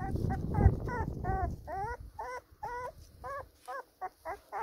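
Four-week-old Labrador puppies whimpering in a quick run of short, high squeaks, about four a second, some rising and some falling in pitch.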